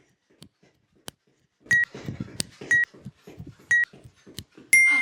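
Workout interval timer counting down: three short beeps about a second apart, then one longer, slightly higher beep marking the end of the interval. Heavy panting and movement sound underneath.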